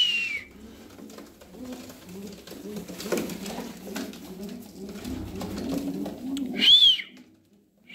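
A group of domestic pigeons cooing, many low rolling coos overlapping, with a short high squeak at the start and another near the end.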